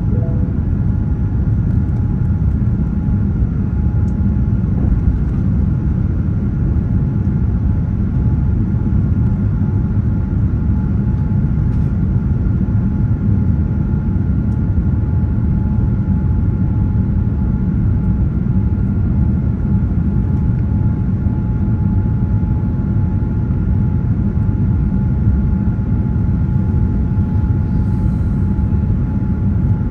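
Jet airliner climbing out just after takeoff, heard from inside the cabin: a loud, steady engine and airflow rumble with a steady whine in two high tones above it.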